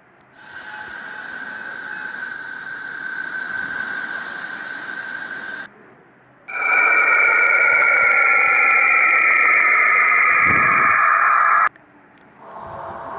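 Planetary 'space sounds', spacecraft recordings turned into audio: a steady hiss with a held whistling tone, then after a short break a louder hiss carrying two tones that slowly fall in pitch and cut off suddenly, with another clip starting near the end.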